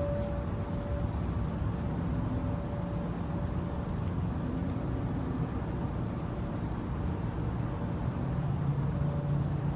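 Steady low rumble of street traffic, with a steadier engine-like hum coming up near the end. A faint steady tone dies away about half a second in.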